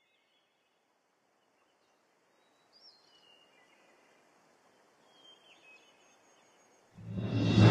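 Faint countryside ambience with a few short bird chirps. Near the end, loud theme music swells in.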